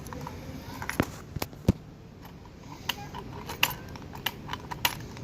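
Irregular sharp metallic clicks and light jingles of keys and switches being worked on a Honda Magna V65 motorcycle, with no starter or engine sound following: the bike has no electrical power.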